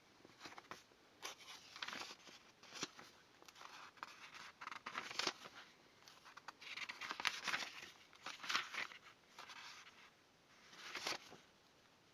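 Hands handling computer hardware packaging: irregular rustling, crinkling and small scrapes and clicks of plastic and cardboard.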